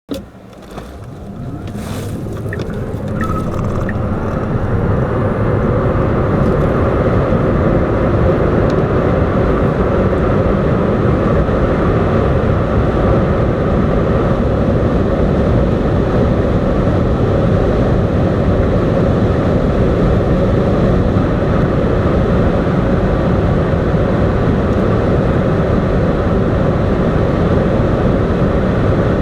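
Tesla Model S accelerating hard. Road and wind noise build over the first four seconds as speed rises, with a faint rising whine in the first two seconds, then settle into a steady loud rush at high speed.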